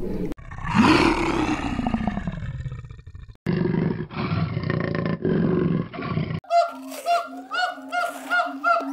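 A sequence of different animal calls cut one after another. First a loud roar falling in pitch, then a low, harmonically rich call in three pieces, then a short call repeated about twice a second.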